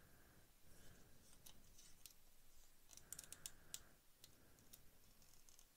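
Near silence with faint small clicks of metal tweezers and plastic model-kit parts being handled, a few in quick succession about three seconds in.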